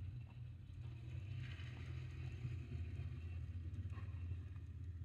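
Steady low background hum, with a few faint clicks.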